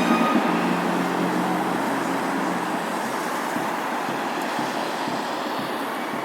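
Steady outdoor background noise with no clear tones, such as distant road traffic, growing slightly quieter.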